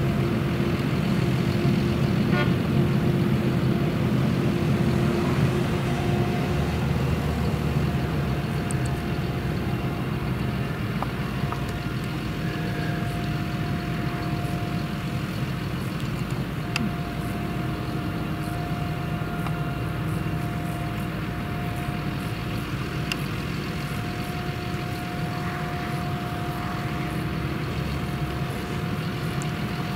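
Claas Jaguar 970 forage harvester's MAN V8 engine running steadily under load while it chops sorghum, with a steady whine from the machine over the low drone and the tractor pulling the trailer running alongside.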